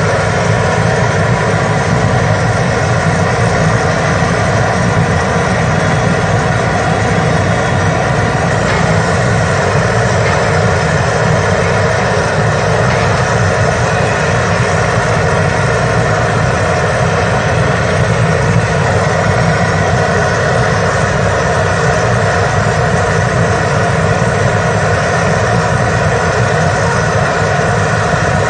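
Potato sticks deep-frying in a large iron wok of bubbling oil, under a loud, steady low rumble that does not change.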